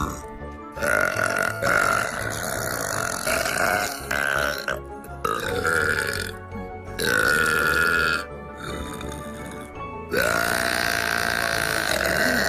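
A run of long, drawn-out burps from girls or young women, about five or six one after another with short gaps between them, over background music. The last one is the longest, over two seconds.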